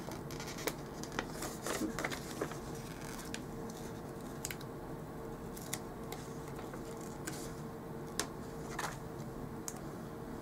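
Scattered light clicks and paper rustles from handling sticker sheets and peeling off planner stickers, over a faint steady hum.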